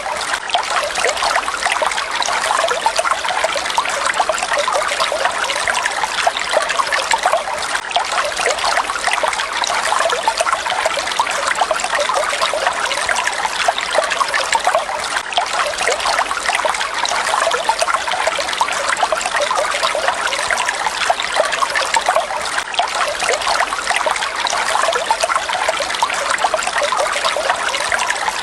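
Water falling and splashing steadily: a dense, even patter of small splashes, bright and hissy with little low rumble.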